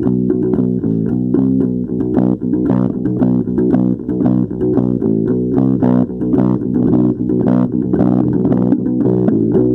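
Instrumental music with a prominent bass guitar and plucked guitar notes in a quick, steady pattern.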